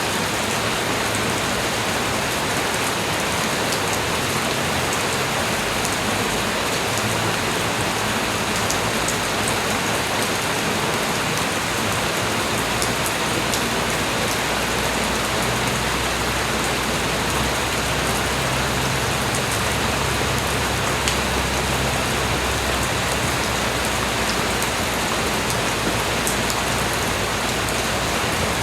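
Light rain falling steadily, a continuous hiss scattered with the fine ticks of individual drops. A low rumble joins underneath a little before halfway through.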